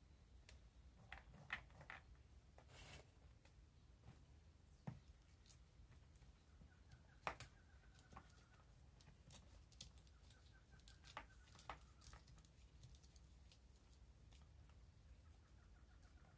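Fresh green bean pods being shelled by hand: faint, scattered snaps and clicks as the pods are split and the beans drop out, the sharpest about seven seconds in. Quiet overall.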